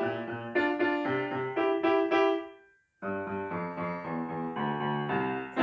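Kawai grand piano played by hand: a lively run of short notes and chords in an elementary-level piece. The sound fades out briefly about halfway through, then the playing picks up again.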